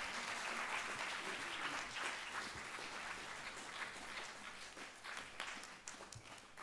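Seated audience applauding, a steady patter of many hands that fades and thins into scattered claps near the end.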